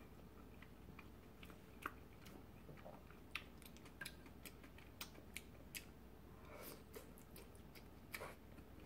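Faint chewing close to the microphone: scattered soft, wet mouth clicks and smacks at an uneven pace, a few a little louder than the rest.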